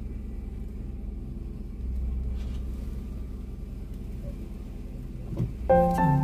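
Low, steady rumble of a car's engine and running gear heard from inside the cabin as it moves slowly along a narrow lane. Piano music comes in near the end.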